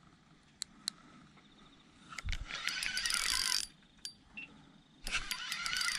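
Fishing reel being wound in two spells of cranking, each about a second and a half long, with a few sharp clicks before them, as a hooked fish is brought in.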